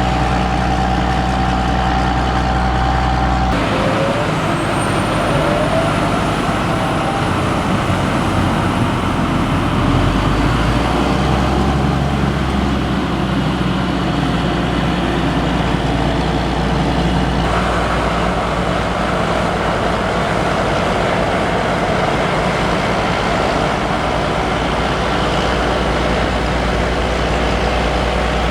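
Heavy diesel farm machinery running steadily under load. The sound changes abruptly twice, about three and a half seconds in and again near the middle, with a faint rising high whine just after the first change.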